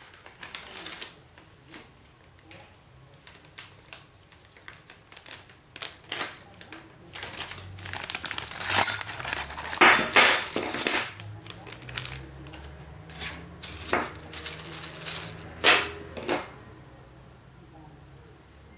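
Plastic bag rustling and crinkling while small metal CPU-cooler mounting parts (backplate, brackets, screws) clink and clatter as they are unpacked, in a run of sharp clicks that is loudest in the middle.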